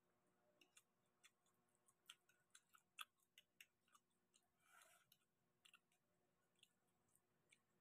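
Faint eating sounds: scattered small clicks and smacks from chewing and a fork working through spaghetti and prawns, the sharpest about three seconds in, with a brief soft hiss about five seconds in.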